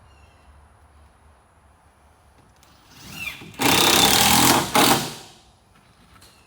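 Power drill driving a screw through plywood flooring into a boat hull: a short spin-up about three seconds in, then about a second of loud driving, with a brief second burst as the screw pulls down and seats.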